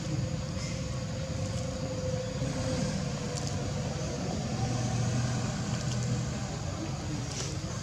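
Steady low engine hum, like a motor vehicle running nearby, with a few faint clicks over it.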